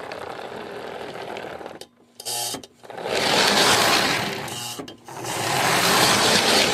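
Lionel MPC-era Amtrak F3 locomotive with two Pullmor motors running on the track: a steady mechanical whir of motor, gears and wheels. It breaks off briefly about two seconds in, then swells louder twice with a short dip between. The motors have just been cleaned and oiled and run a little smoother, though the rear motor may still need work.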